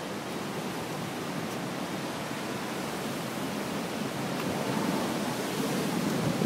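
Steady rushing noise of Typhoon Roke's storm wind and rain, swelling slightly toward the end.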